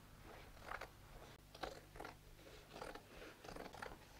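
Scissors snipping through the thick, bulky seam of denim jeans: a faint series of about six short, separate cuts.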